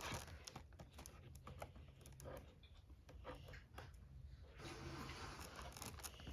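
Faint scattered clicks and light rustling of toy packaging being handled and worked open.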